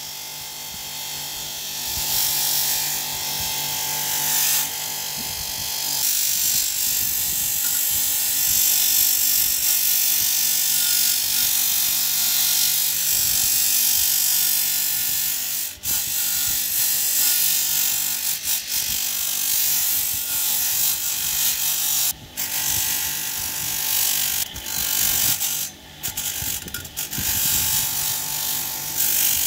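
Bench grinder running with a steel scissor blade pressed against its spinning wheel: a steady motor hum under a hissing, scraping grind that swells and eases as the blade is worked. The grind briefly drops out a few times when the blade is lifted off.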